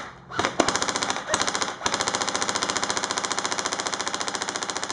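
Airsoft electric rifle firing fully automatic: a fast, even stream of shots, briefly broken about two seconds in, then running on as one long burst.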